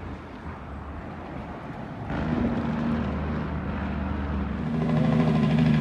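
Heavy truck's diesel engine running under way, heard from on board. It picks up about two seconds in and gets louder near the end.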